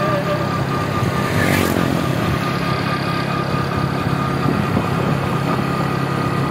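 Engine of a moving road vehicle running steadily, with road and wind noise; a brief whoosh about one and a half seconds in.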